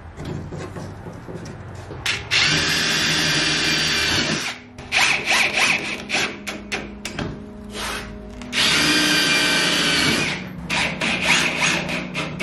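Ryobi cordless driver driving screws through the panel into the aluminium frame, in two runs of about two seconds each. Clicks and handling knocks come between the runs.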